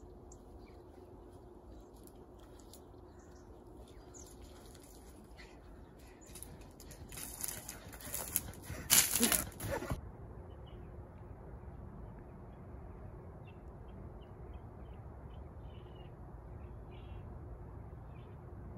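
Quiet rural outdoor ambience with faint, scattered bird chirps. Partway through, a louder rustling, noisy burst builds over a few seconds to a sharp peak and then cuts off suddenly.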